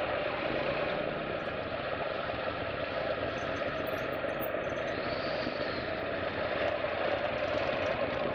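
Engines of a group of touring motorcycles and trikes running steadily at low speed, a constant drone heard from a camera riding on one of the bikes.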